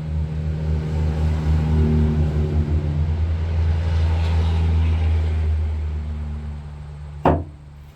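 A motor vehicle's engine running as it passes by, a low hum that swells and then fades away. A single sharp click or knock comes near the end.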